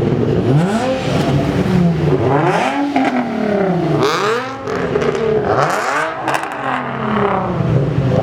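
Car engine revving repeatedly, its pitch climbing and falling three or four times, with a few sharp cracks among the revs. Before and after the revs the engine holds a steady drone.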